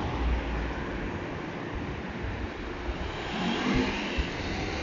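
City street ambience: steady road traffic noise from a busy avenue, swelling a little about three seconds in.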